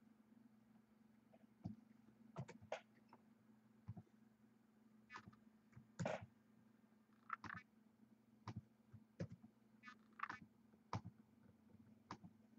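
Faint, irregular clicks of a computer mouse and keyboard keys, a dozen or more spread out, over a low steady hum.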